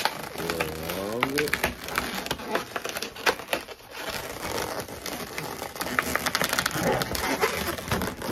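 Inflated latex modelling balloons squeaking and crackling as they are stretched, twisted and rubbed against each other by hand. There is a run of gliding squeaks in the first second and a half, and short rubbing crackles throughout.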